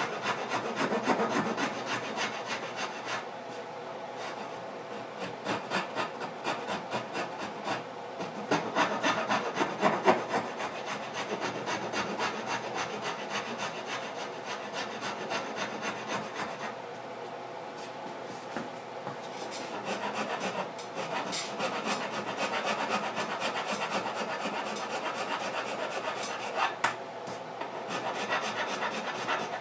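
Hand rasp filing the wooden guitar body at the neck joint: a steady run of quick scraping strokes as the corner at the heel is carved away.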